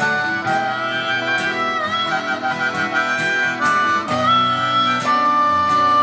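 Live harmonica solo over acoustic and electric guitar: held notes, a quick trill about two seconds in, and a long held note near the end.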